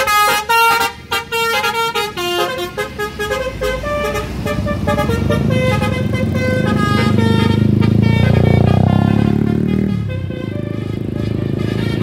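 Basuri V3 multi-tone 'telolet' bus horn playing a quick melody of short stepped notes. Partway through, the coach's engine noise swells as it pulls away, loudest about two-thirds of the way in, then drops back while the horn keeps playing.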